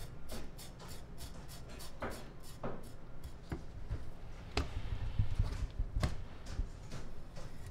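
Sashimi knife and a yellowtail fillet being worked on a plastic cutting board: a soft scraping of the blade with scattered light clicks and taps, a handful spread over several seconds.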